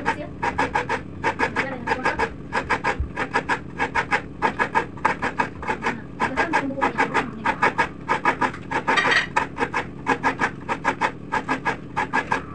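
Coconut being grated on a kudkuran, a wooden bench grater with a serrated metal blade: the coconut half rasps against the blade in quick, rhythmic strokes, about three or four a second, with short pauses between runs.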